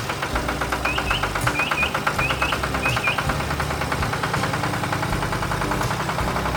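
Tractor engine running steadily with a fast, even knocking pulse. Four short double chirps, like a small bird, sound over it in the first half.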